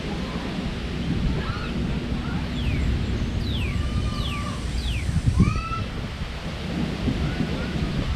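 Low rumble of beach surf and wind, with birds calling over it: a run of short whistled chirps, several sweeping quickly downward in pitch, in the middle.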